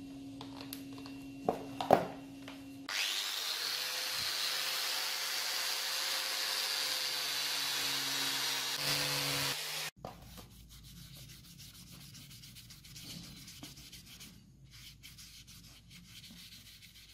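A couple of knocks on the work surface. Then an angle grinder fitted with a polishing wheel runs against the knife's brass bolster for about seven seconds and cuts off suddenly. After that comes quieter rubbing of a cloth over the wooden handle.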